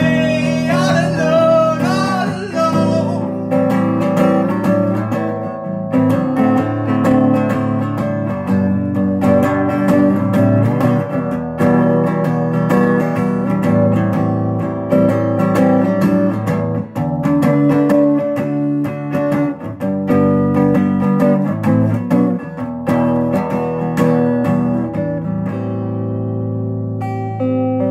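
Music: an acoustic guitar song, the guitar picked over sustained chords. A wavering high melody line sits over it for the first three seconds.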